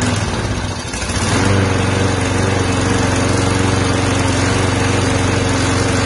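Craftsman Gold 6.75 (190 cc) single-cylinder lawn mower engine firing up and running at a steady speed from about a second in. It is running on a shot of carburetor cleaner with no gas in the tank, which shows that the newly fitted ignition coil makes spark and the old coil was bad.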